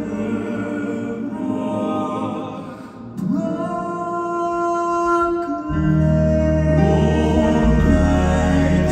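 Live gospel vocal group singing long held chords with accompaniment; a deep low bass comes in about six seconds in and the music grows louder.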